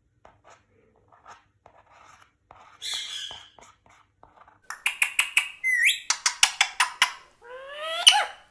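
Indian ringneck parakeet calling in a rapid series of sharp, pitched squawks, with upward-gliding screeches near the end. Faint scratching and clicks come before the calls.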